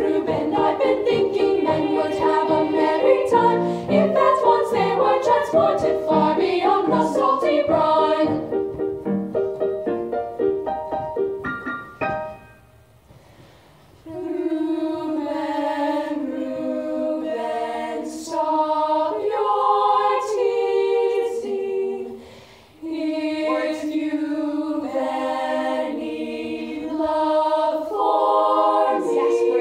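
Girls' choir singing in rehearsal: a quick, busy passage, a short break about twelve seconds in, then slower held chords with brief breaths between phrases.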